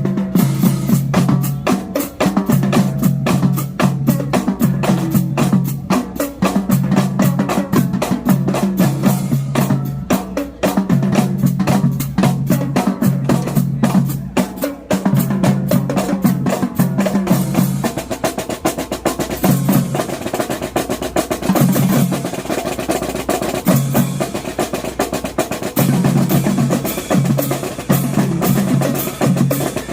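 Marching drumline playing a loud, fast cadence: rapid snare strokes and rolls over a pattern of pitched bass drum notes.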